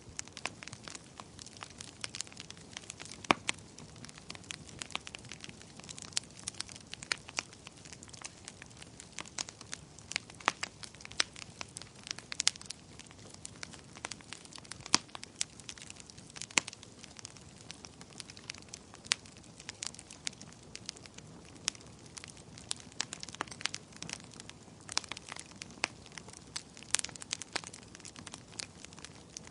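Wood fire crackling, with irregular sharp pops and snaps over a soft steady hiss.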